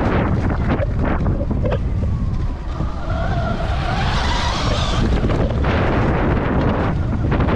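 Wind buffeting the microphone while a Sur-Ron electric dirt bike is ridden off-road, with short knocks from the rough ground. About three seconds in, the bike's electric motor whines up and back down in pitch for about two seconds, with a hiss of tyres on dirt.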